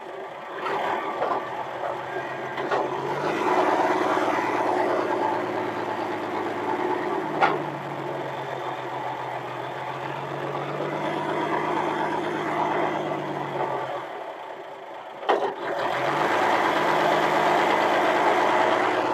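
A forklift's engine runs and revs up a few seconds in, drops back toward idle late on, then revs again. Two sharp clacks come over it, one midway and one just before the second rev-up.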